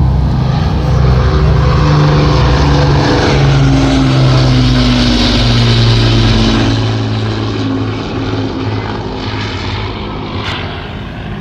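Avro Lancaster bomber's four Rolls-Royce Merlin piston engines droning in a flypast. The engine note drops in pitch as the aircraft passes, then fades over the last few seconds.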